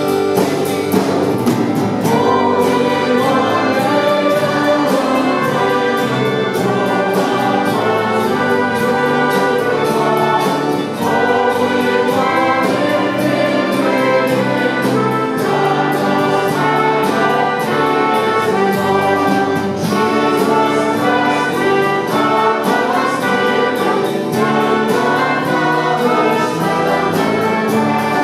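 Brass ensemble of trumpets, French horn and trombone playing worship music together, with a steady beat beneath.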